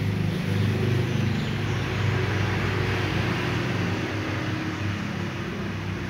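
A kitten crunching dry cat food, under a steady low hum like a running engine.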